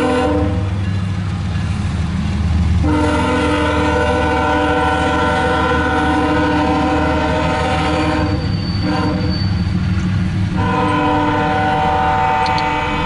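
An empty coal train of hopper cars rolling past close by, with a steady low rumble of wheels on rail. Over it, a locomotive's multi-chime air horn sounds a chord in blasts: one ends just after the start, then a long blast, a brief one and another long one. This long-long-short-long sequence is the grade-crossing signal.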